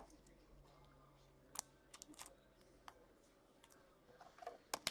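Faint, scattered clicks and ticks of trading cards being handled and flipped through, with a denser, sharper cluster near the end.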